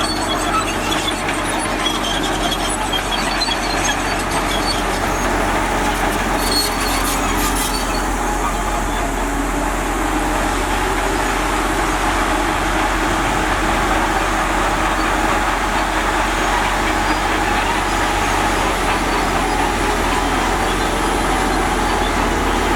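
Heavy earthmoving machine's diesel engine running steadily, with a few sharp clicks about six to seven seconds in.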